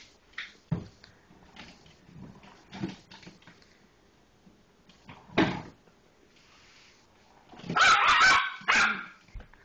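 Three-month-old Yorkshire terrier puppy barking in short, sharp yaps: a few single barks spaced out, then a louder run of barks near the end.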